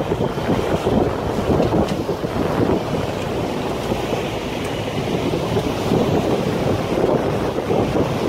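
Wind buffeting the microphone on the open deck of a moving tour boat, with the rush of river water along the hull. It makes a loud, uneven rumble.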